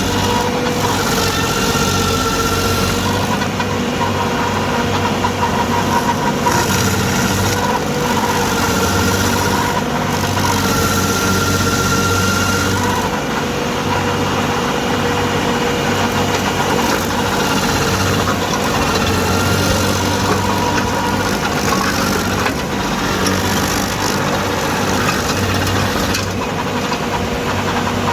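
Stump grinder engine running hard under load while the cutting wheel mills into a stump, its note shifting every few seconds as the load changes.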